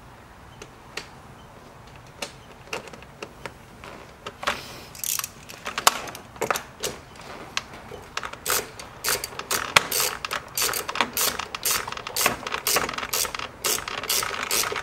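Hand ratchet clicking as screws are driven in: a few scattered clicks at first, then quick, repeated runs of ratcheting from about four seconds in, growing louder.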